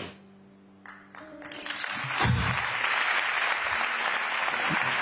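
Large audience applauding, starting about a second in and swelling quickly to steady, dense clapping.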